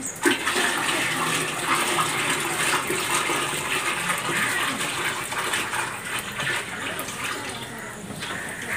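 Thick palmyra fruit juice poured from a metal basin into a 200-litre plastic drum, splashing as it falls. The pour starts suddenly and thins out near the end.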